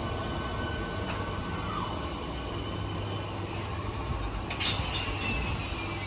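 Train running on the tracks with a steady low rumble. About four and a half seconds in there is a short clatter, followed by a faint whine that falls slowly in pitch.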